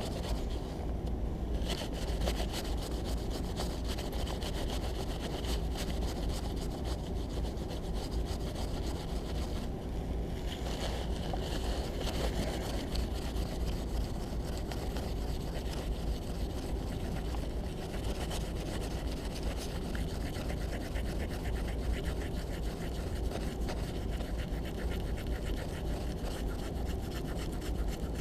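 Paper towel dampened with acetone being scrubbed back and forth over a printed circuit board to wipe off solder mask paint: continuous rapid rubbing and scraping, with a low rumble underneath.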